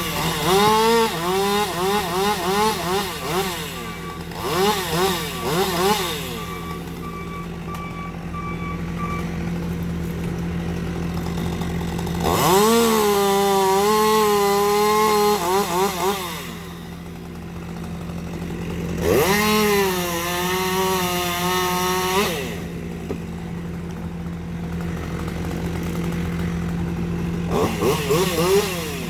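Chainsaw revved in quick blips at the start and again near the end, and twice held at high revs for a few seconds while it cuts the fallen tree. A steady low engine hum runs underneath throughout.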